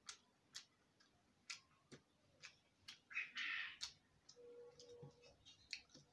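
Close-up sounds of eating rice and curry by hand: scattered wet chewing and lip-smacking clicks, with a louder hissy slurp about three seconds in as a handful goes into the mouth.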